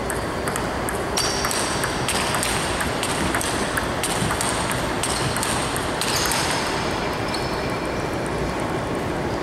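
Table tennis balls struck by the bat and bouncing on the table: a quick, irregular run of sharp ping-pong clicks that stops about seven seconds in.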